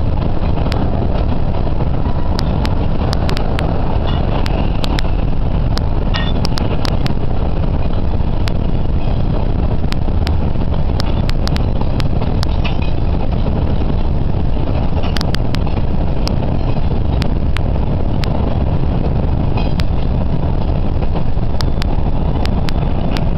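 Steady road and wind noise of a moving car, heard from inside the cabin, with scattered sharp clicks.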